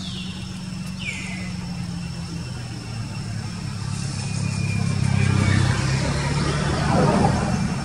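A motor vehicle engine running as a steady low hum, which grows louder through the second half and peaks shortly before the end before falling off. Two short high chirps falling in pitch come near the start.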